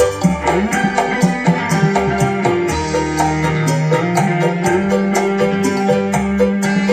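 Music with a steady drum and percussion beat, played back through miniature sound-system speakers during a sound check.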